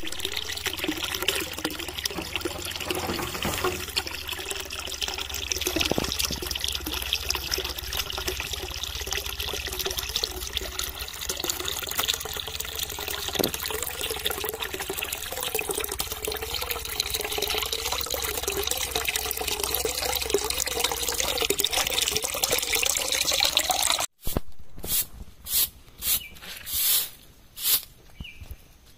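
Freshly pressed cashew apple juice running and trickling steadily down a channel in the rock. Near the end the running stops abruptly and a few separate short noisy sounds follow.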